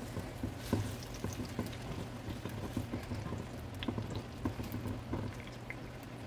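Diced onion and tomato sizzling in hot oil in a nonstick pot, with a scatter of small crackles and pops while a spatula stirs them. A low steady hum runs underneath.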